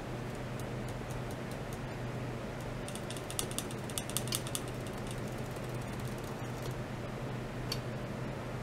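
Steady low hum from running bench electronics, with a quick run of small dry clicks about three to four and a half seconds in and a few single ticks elsewhere.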